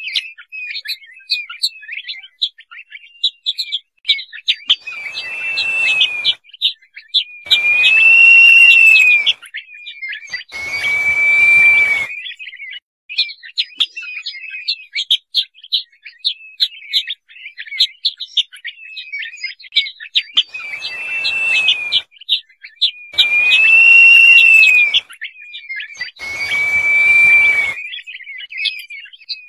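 Crested partridge (roul-roul) calling: long whistles that rise and fall, six in all in two sets of three, over a constant run of rapid, high chirping notes.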